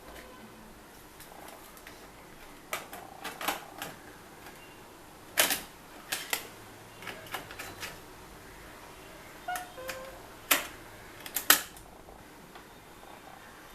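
Irregular sharp mechanical clicks and clacks, about a dozen, some single and some in quick pairs. The loudest come about five and a half, ten and a half and eleven and a half seconds in.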